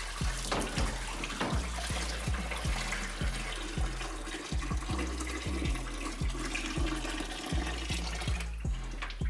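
Liquid trickling and splashing, most likely engine coolant running out of the radiator as it is worked free. A run of short, low thuds sounds underneath.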